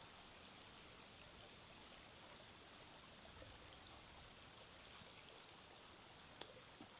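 Near silence: faint steady outdoor hiss, with a faint click near the end.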